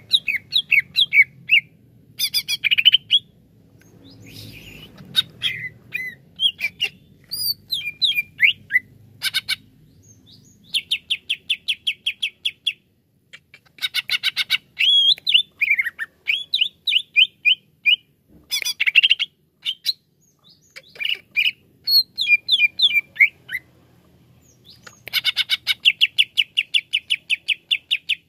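Male cucak ijo (green leafbird) singing: bouts of fast, rapidly repeated notes mixed with varied whistled and chattering phrases, broken by short pauses.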